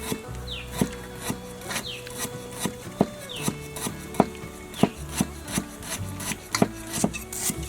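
A knife working on a wooden cutting board in repeated strokes, each a short scrape ending in a sharp knock, roughly one to two a second.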